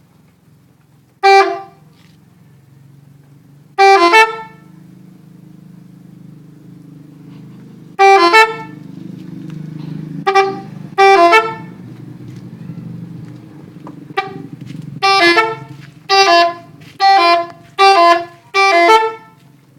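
Truck 'telolet' musical horn sounding about ten short multi-note blasts, each stepping between notes, spaced a few seconds apart at first and then about one a second near the end, over a steady low hum.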